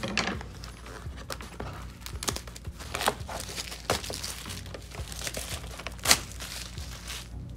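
Plastic shrink wrap crinkling and tearing as it is peeled off a cardboard box, a run of sharp crackles with the loudest about six seconds in.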